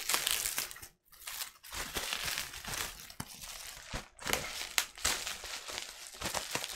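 Plastic packaging and bubble wrap crinkling and rustling as they are handled to get a vinyl record out, with irregular small clicks. The rustling stops briefly about a second in and again around four seconds in.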